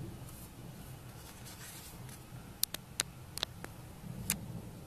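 A steady low rumble, with a quick cluster of about six sharp clicks a little past the middle.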